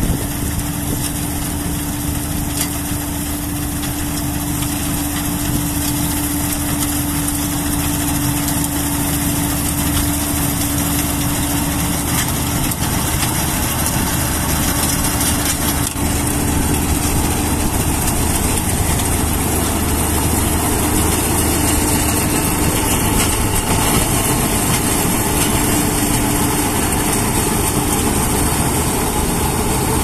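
ICM combine harvester's diesel engine and threshing machinery running steadily while it cuts wheat, slowly growing louder as it drives close past.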